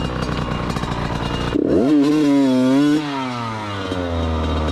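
Small off-road motorcycle engine running at a steady low note, then revved sharply about one and a half seconds in. It holds high for a second or so, then eases back down to a steady lower run.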